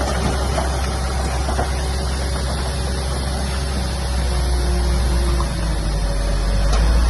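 Diesel engine of heavy earthmoving equipment running steadily, with a few faint knocks. It grows louder about four seconds in and again near the end.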